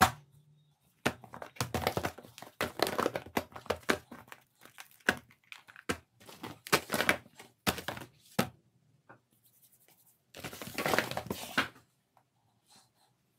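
Cardboard craft-kit boxes being handled, slid across a table and set down: a run of short scrapes and knocks, then a longer scraping rustle about ten seconds in.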